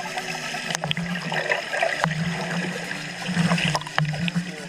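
Water sloshing and gurgling around the camera as it moves in the sea, with a low hum that comes and goes and a few sharp clicks.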